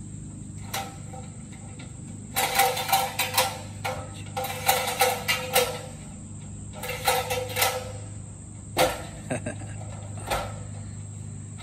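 Steady high-pitched insect chorus, with three clusters of loud, harsh pitched bursts from about two to eight seconds in and a few sharp knocks.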